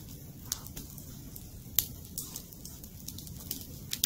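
Small campfire of sticks crackling, with scattered sharp pops at irregular intervals.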